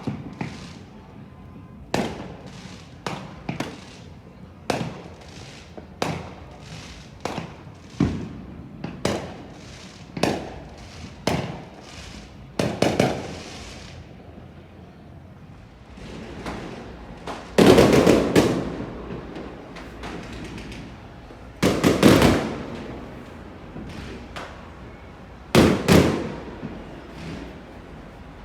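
Fireworks going off: a steady run of bangs about one a second, each trailing off in a rolling echo, with three louder, longer booms in the second half.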